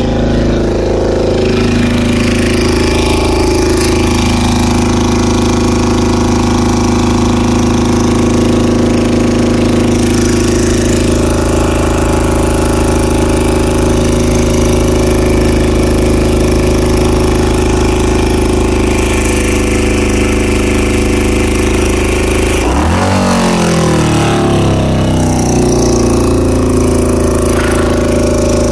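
Honda CBR600F4's inline-four engine running steadily at a fast idle, with a brief change in engine speed about 23 seconds in. The engine has a vacuum leak at the carburetor intake boots, being tracked down by spraying carburetor cleaner on them.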